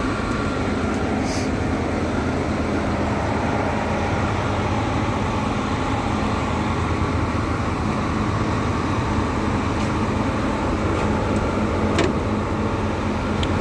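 Terex AC250-1 mobile crane's diesel engine running steadily, powering the hydraulics as the outrigger jacks are lowered to touch down for levelling.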